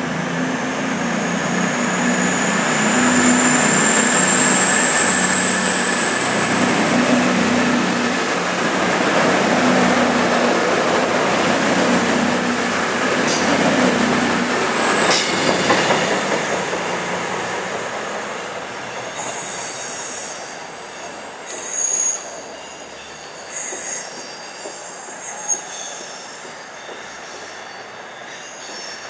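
Class 221 Super Voyager diesel-electric multiple unit pulling away and passing close, its diesel engines running under power. A high whine climbs in pitch as the train gathers speed, then cuts off suddenly about fifteen seconds in. The sound then fades as the train leaves, with a few short high squeals near the end.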